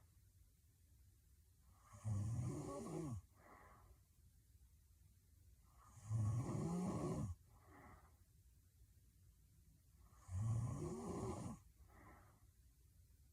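A young woman snoring heavily in her sleep: three loud snores on the in-breath, about four seconds apart and each a little over a second long, each followed by a short, softer out-breath.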